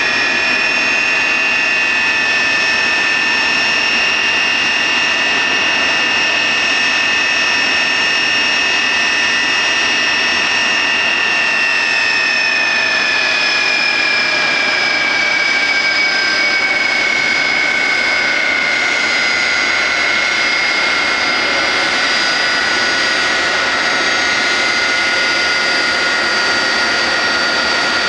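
Jet aircraft engines running with a steady roar and a high whine; the whine slowly falls in pitch from about halfway through.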